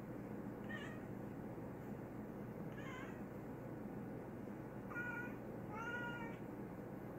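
Domestic cat meowing four times, short calls a second or two apart, the last two longer and close together.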